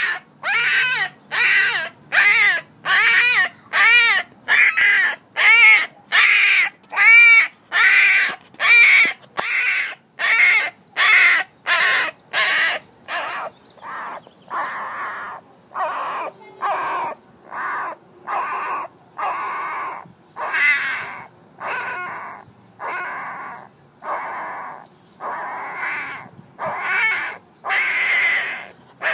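One-week-old Alaskan Malamute puppy crying from hunger, over and over, about one cry a second. The early cries are clear squeals that rise and fall in pitch. From about halfway they turn longer, lower and raspier.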